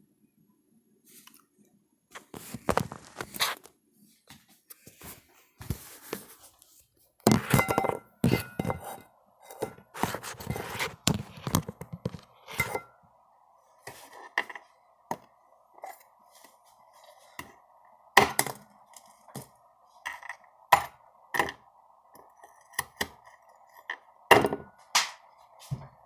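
Irregular knocks, thunks, scrapes and clinks of a phone and objects being handled and set down on a counter, busiest in the first half. A steady hum comes in about halfway through and carries on underneath.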